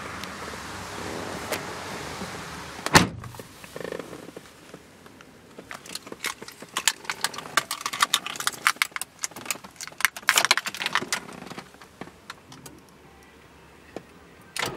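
A car door shuts with a loud thud about three seconds in. Then a bunch of car keys jingles and clinks on and off for several seconds as the key is put into the ignition lock of a 2003 Mazda 6 and turned.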